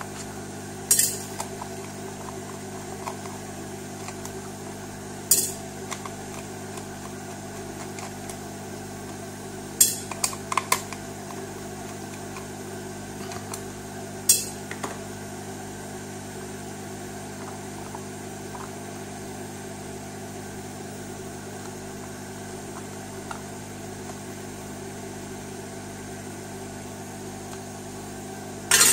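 Sharp clicks and snaps of a small plastic electronic device being taken apart, a few seconds apart, over a steady electrical hum.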